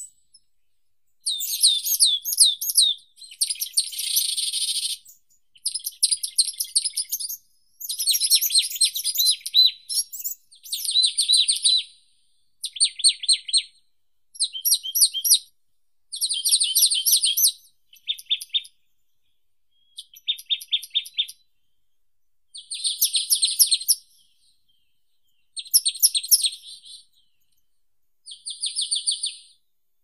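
A songbird singing short, high phrases, each a quick run of notes lasting a second or two, with brief pauses between them and the phrases varying in shape from one to the next.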